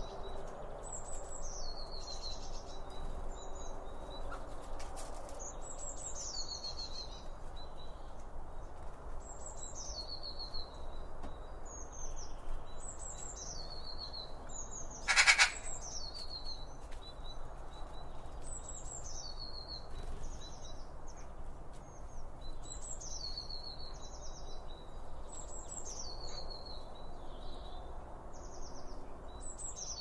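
Blue tit singing: a short phrase of high, falling notes ending in a trill, repeated about every two and a half seconds. One brief, louder call cuts in about halfway.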